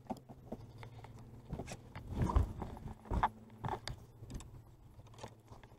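Light clicks and rattles of a fishing reel and tackle being handled as slack line is reeled in, with a few dull knocks, the loudest a little after two seconds in, over a faint steady hum.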